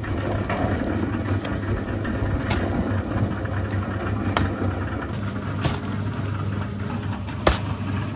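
Concrete mixer running with a steady low drone, with a few sharp knocks over it, the loudest near the end.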